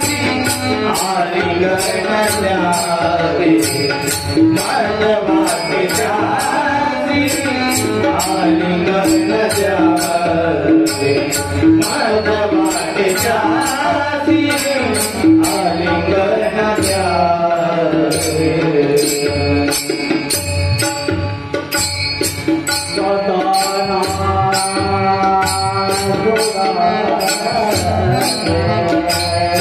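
Devotional Marathi bhajan: a male voice sings a melodic line over a steady percussion beat and a low drum.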